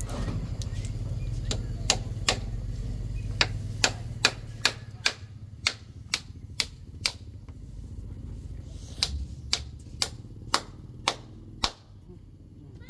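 Hammer tapping on the frame edge to fix shade netting in place: sharp single knocks, about two a second, in two runs with a pause of about two seconds between them.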